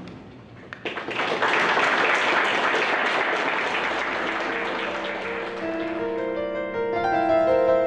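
Audience applause breaking out about a second in, then fading as piano music fades in around six seconds.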